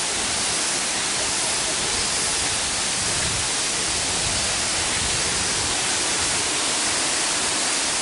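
Steady rush of a waterfall and its rocky stream, an even hiss of falling and running water.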